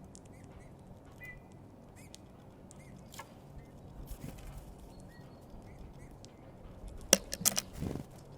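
Great tits feeding at a feeder: scattered sharp taps and clicks of beaks pecking at seed and the feeder, with a loud run of taps a little after seven seconds in. Short soft calls sound here and there.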